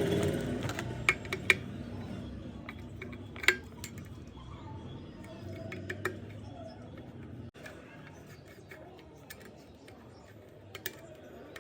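Scattered sharp metallic clicks and clinks of small metal parts or tools being handled, the loudest about a second and a half and three and a half seconds in, over a low hum that fades away.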